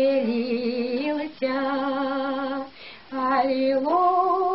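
An elderly woman singing a Russian Christmas carol (koliadka) unaccompanied, a solo voice holding long drawn-out notes, with two short breaks and a step up in pitch near the end.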